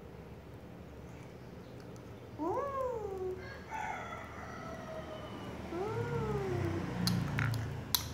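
A cat meowing three times in long calls that rise and then fall in pitch. Near the end come a few sharp clicks.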